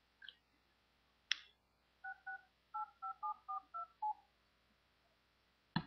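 A cordless telephone being dialed: about eight touch-tone keypad beeps in quick succession, each a two-note tone. A sharp click comes before them and a knock near the end.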